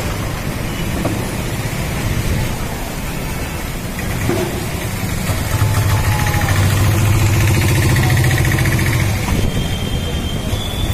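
Storm wind buffeting the microphone in a continuous roar of noise, with a motor vehicle's engine running close by as a low hum that is loudest for about three seconds past the middle.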